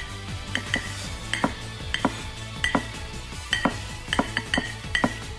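Paring knife clinking against a ceramic plate as it cuts through a slice of white bread: sharp clinks with a short ring, mostly in quick pairs, repeating about every two-thirds of a second.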